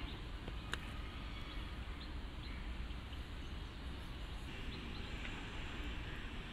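Steady outdoor ambience at cricket practice nets: a low rumble and hiss with faint bird chirps. A single sharp knock, a cricket ball's impact, comes a little under a second in.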